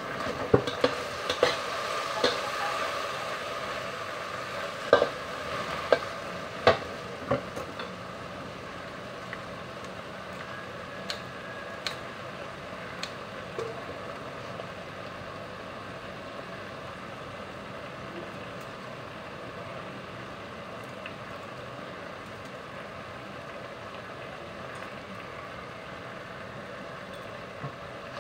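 Sliced okra frying in a wok with a steady sizzle. A metal spatula knocks and scrapes against the pan over the first several seconds, then only the sizzle goes on, with a few scattered clicks.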